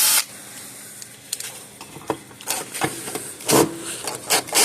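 Power driver with a Torx bit run in short bursts against dirt-packed case screws, the bit scraping and clicking in the screw heads as it tries to catch.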